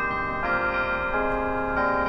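Downtown tower chime bells playing a tune: a new bell note is struck about every half second to second, three in all, each ringing on and overlapping the ones before.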